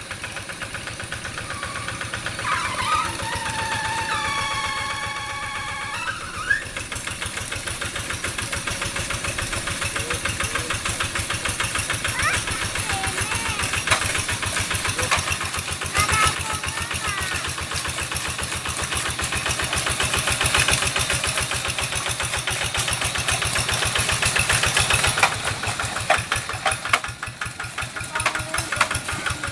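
Single-cylinder diesel engine of a Quick G1000 two-wheel hand tractor running steadily with a rapid chugging beat as the tractor drives its cage wheels through a flooded rice paddy.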